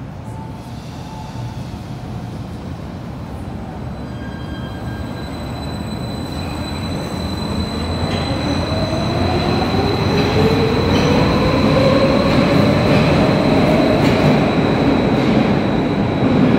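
Stadler metro train accelerating out along the platform, with a steady rumble of wheels on rail. From about halfway in, its traction motors whine, rising steadily in pitch as the train gathers speed, and a thin high whistle runs above them. The sound grows louder throughout.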